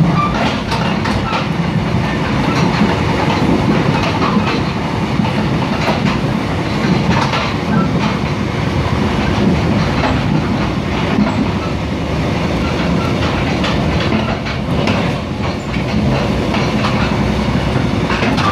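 Mugunghwa-ho passenger train running at speed, heard from aboard: a steady rumble of wheels on the rails, with scattered sharp clicks over the track.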